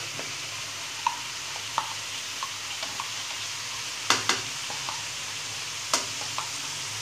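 Chicken and cauliflower frying in oil in a pan, a steady sizzle, while a blended garlic-and-onion paste goes in. A few sharp taps and clicks come over it, the loudest about four seconds in and again near six seconds.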